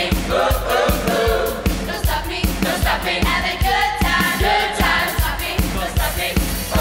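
A choir and a lead singer performing a song live, with many voices over a steady beat.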